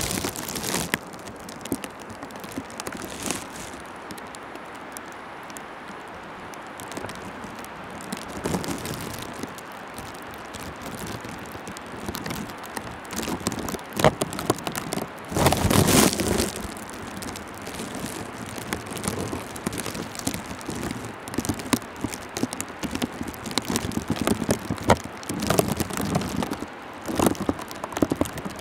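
Wet snow falling and pattering: a steady hiss with scattered small crackles, and a louder burst about sixteen seconds in.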